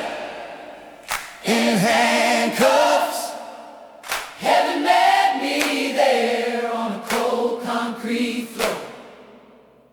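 Music: a stripped-down section of a country-rock song with choir-style sung harmonies and no bass, in three phrases that each fade away.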